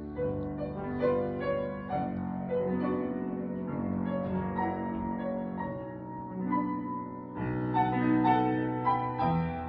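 Piano playing classical music: a slow passage of sustained notes and chords.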